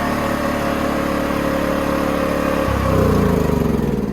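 An engine running steadily, starting abruptly; about three seconds in its note shifts and it grows a little louder before fading.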